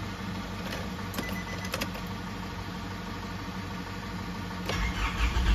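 A steady low hum with a few light clicks, then near the end a diesel engine, its glow plug wired straight to the battery, cranks and catches quickly, running louder. The quick start without pressing the accelerator shows the glow plug heats when fed directly; the fault lies in its relay or control circuit.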